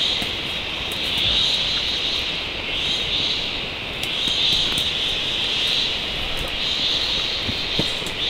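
Loud, high-pitched insect chorus droning in the forest, swelling and fading every second or so. Scattered light clicks and rustles of handling sit under it.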